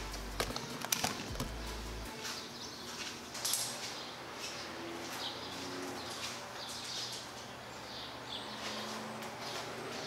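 A few sharp clicks as a three-prong plug is pushed into a wall power strip, then faint rustling as the cord is handled. Birds chirp outside throughout.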